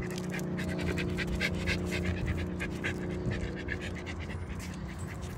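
A dog panting quickly, about four to five breaths a second, easing off after about three seconds, over a steady low hum.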